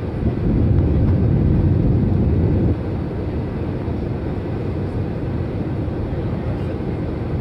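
Steady cabin noise of an Airbus A320-family jet airliner on final approach, heard from a window seat beside the engine: engine and airflow rumble. Just after the start a louder low rumble swells for about two seconds and stops abruptly.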